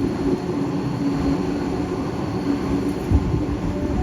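Electric passenger train running at the station: a continuous rumble of wheels on rail with a steady two-tone hum from the train's electrics, and a louder knock about three seconds in.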